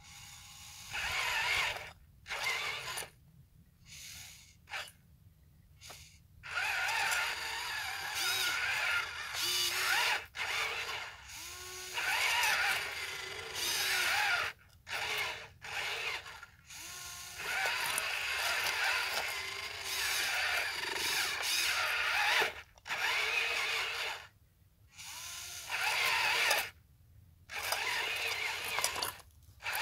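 Huina 1583 RC wheel loader's electric motors whirring through their plastic gearboxes in stop-start bursts, from a fraction of a second to several seconds long, the whine rising and falling in pitch as the controls are worked.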